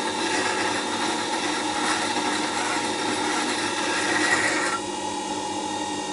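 Bowl gouge being ground against the wet stone of a Record Power WG200 wet grinder: a steady scraping over the grinder motor's hum. The scraping drops away about five seconds in while the motor keeps running.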